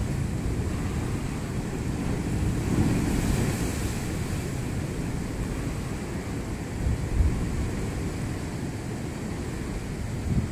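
Ocean surf washing against the coastal rock stacks, with wind buffeting the microphone. The surge swells about three seconds in, and there is a brief louder rush near seven seconds.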